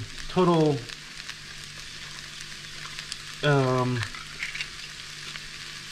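Pinto beans and onions frying in hot lard in a cast-iron Dutch oven, a steady sizzle. Twice, about half a second in and about three and a half seconds in, a short falling pitched sound rises above the sizzle.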